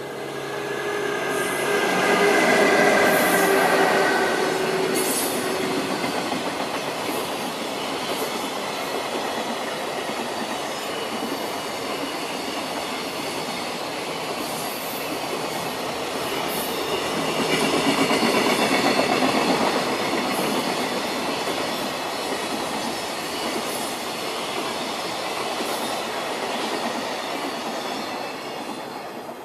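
EF66 electric locomotive hauling a long container freight train past at speed. A steady whine sounds as the locomotive goes by in the first few seconds. The container wagons then roll by with a clatter of wheels on the rails, swelling again midway, and the sound fades away near the end.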